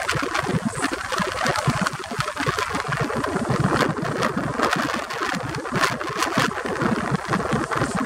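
Seastreak ferry's diesel engines running steadily underway, mixed with rushing water and the uneven rumble of wind on the microphone.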